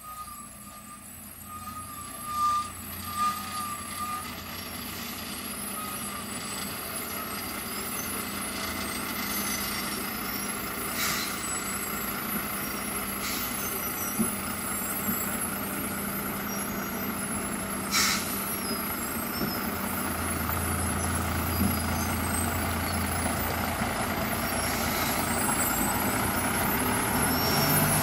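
Heavily loaded 14-tyre lorry's diesel engine pulling slowly round a hairpin bend, growing steadily louder as the truck approaches. A few short hisses of released air, typical of air brakes, cut through the engine noise, and there are brief tones near the start.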